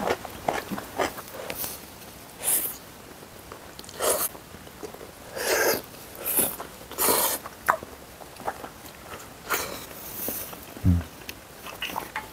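Spaghetti noodles in cream sauce being slurped in a series of short slurps, each about half a second, with chewing and small clicks between them.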